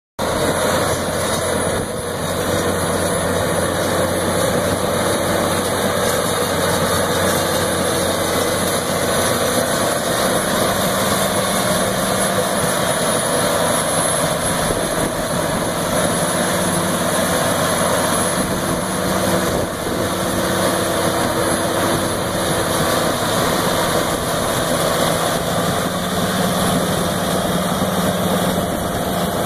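Caterpillar crawler dozer's diesel engine running steadily as the dozer pulls a drainage tile plow through the ground.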